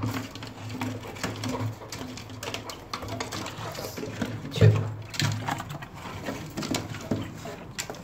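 Handling noises at a wire-mesh quail cage: scattered knocks and rattles, with one loud thump a little past halfway, over a low hum.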